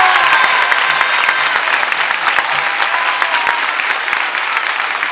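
Audience clapping after a performance, a dense, steady patter of many hands, with a few voices cheering over it during the first couple of seconds.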